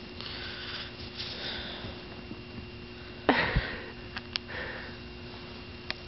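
Soft, breathy sniffing close to the microphone, with one louder sound a little past halfway that falls steeply in pitch, and two small clicks soon after.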